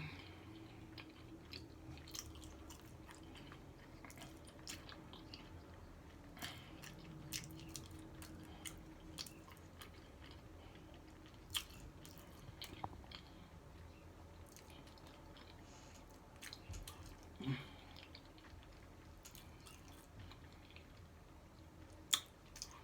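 Close-miked chewing of a taco: soft, scattered wet mouth clicks, smacks and small crunches, faint throughout.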